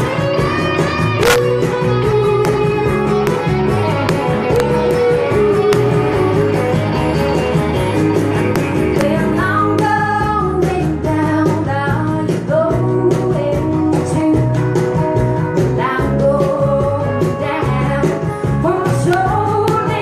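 Live band music: a woman singing while playing a cajón, backed by acoustic guitar and electric bass.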